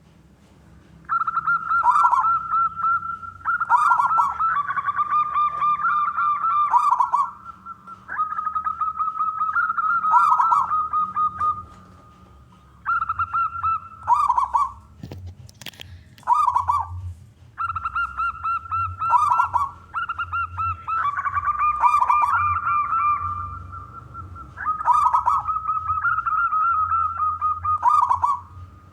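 Zebra doves (perkutut) cooing: repeated phrases of high, warbling coos a few seconds long with short pauses between them, sometimes two voices overlapping.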